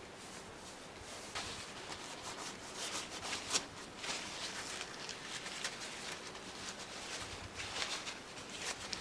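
A piece of paper kitchen towel rubbed and crumpled between the fingers: an irregular run of dry rustling and scuffing.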